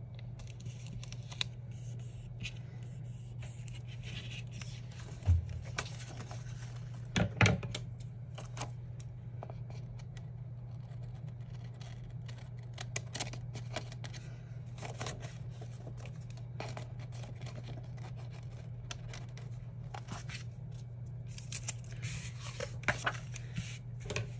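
Scissors snipping and paper rustling as a sticker overhanging a planner page edge is trimmed, with scattered small clicks and a couple of louder knocks about five and seven seconds in, over a steady low hum.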